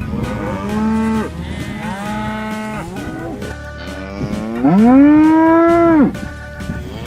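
Cattle mooing: a series of moos, the longest and loudest about two-thirds of the way through, rising and then falling off.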